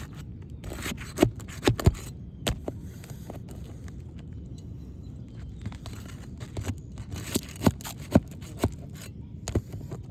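Asphalt roof shingles being pried up and unsealed: irregular sharp cracks and scrapes as the worn-out sealant strip breaks loose, over a steady low rumble.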